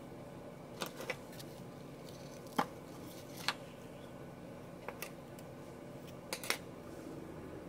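Crafting sounds at a tabletop as tulle and scissors are handled: about eight short, sharp clicks, several of them in close pairs.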